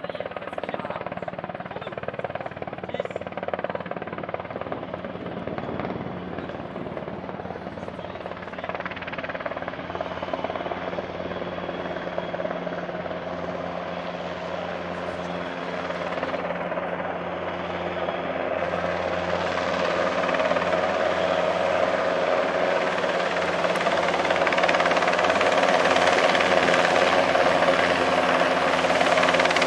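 NH90 helicopter's main rotor and twin turboshaft engines running as it approaches to land, growing steadily louder as it comes closer. A thin high whine joins in about halfway through.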